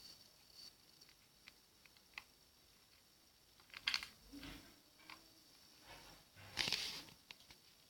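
Slime being squeezed and poked by hand, giving a few short bursts of sticky clicks and crackles, the loudest about four seconds in and again near the end.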